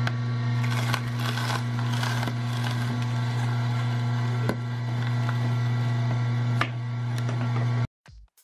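Vertical slow juicer's motor humming steadily while its auger crushes leafy greens, with crackling and a few sharp snaps. The juicer sound cuts off abruptly near the end.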